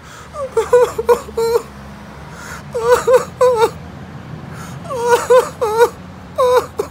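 A man sobbing and wailing in short, wavering cries, coming in four bouts a second or two apart.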